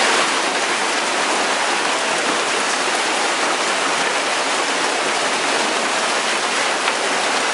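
Heavy hail and rain pelting the pavement, roofs and porch, a dense, steady downpour noise.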